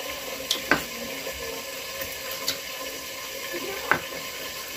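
Kitchen knife slicing a carrot on a wooden cutting board: about four sharp knocks of the blade on the board, irregularly spaced, over a steady hiss.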